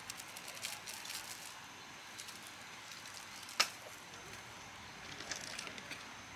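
Scattered light clicks and crackles, with one sharp knock about halfway through.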